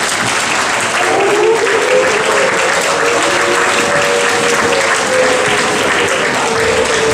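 Crowd applauding steadily, with a held melody of long notes joining in about a second in.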